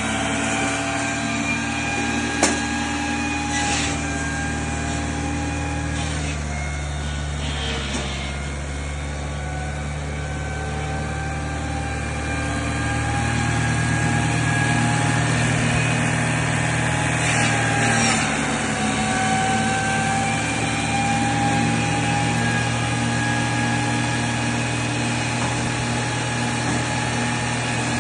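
Homemade eight-chamber drum firewood saw running: a steady mechanical hum whose pitch and load shift a few times, with a couple of sharp clicks and short bursts of harsher noise a few seconds in and again past halfway.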